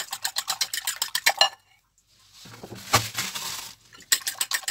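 Fork beating raw eggs in a glass bowl: rapid clinking strokes against the glass. The beating stops about one and a half seconds in, a short rushing noise follows, and the fast clinking starts again near the end.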